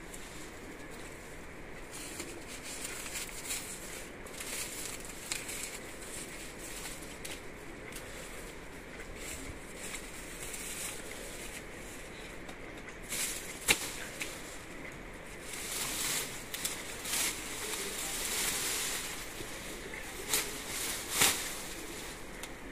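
Sugarcane being cut: dry leaves and stalks rustling in bursts, with a few sharp chops or cracks, the loudest about halfway through and two more near the end.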